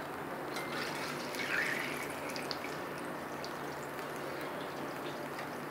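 Gujiyas deep-frying in hot oil in a steel wok: a steady sizzle with light bubbling, with a few light clicks of a slotted metal spoon against the pan. The gujiyas are nearly done, browning on both sides.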